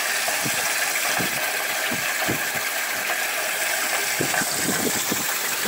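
Water running and splashing from PVC pipes into the plastic drums of a home aquaponics system: a steady rushing splash with small irregular gurgles.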